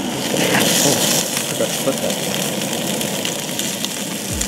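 Battered perch fillets sizzling in butter in a frying pan on a Coleman propane camp stove, a steady hiss that swells briefly about a second in, with light clicks of a fork turning the fillets in the pan.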